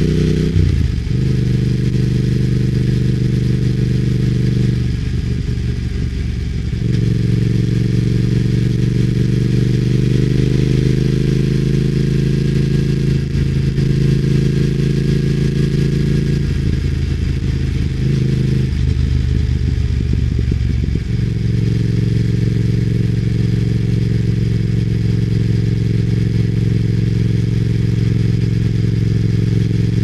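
Triumph Speed Twin's parallel-twin engine running under way, heard from on the bike, with a steady hiss of road and wind noise above it. The engine note breaks up briefly several times, longest at about five to seven and seventeen to twenty-one seconds in, and climbs slowly in pitch in between.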